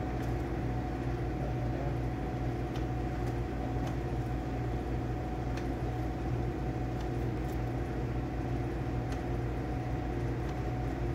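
Steady hum of running refrigerated soda vending machines, with a faint constant tone in it. Light clicks come at uneven gaps, about eight in all, as the selection buttons of a Dixie Narco 368 are pressed to set prices.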